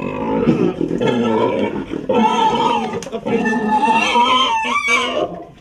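Large domestic pig screaming loudly in long, continuous cries while it is held by handlers, a distress scream at being restrained. The screaming breaks off briefly about two seconds in and stops just after five seconds.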